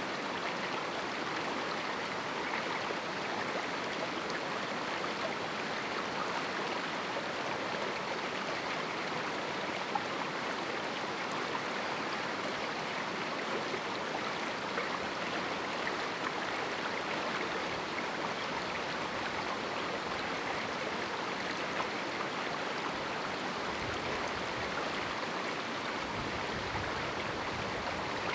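River water running steadily over rocks in a small canyon: an even rushing, strongest in the mid to upper range, with faint splashes along the way.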